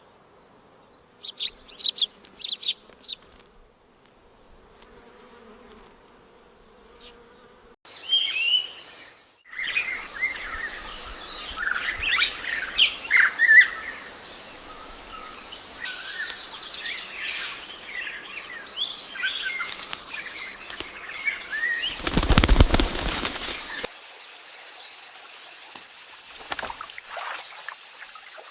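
Wild forest birds chirping and calling in short, repeated phrases. From about eight seconds in, a steady high-pitched insect drone runs beneath them, and later a broad hiss takes over.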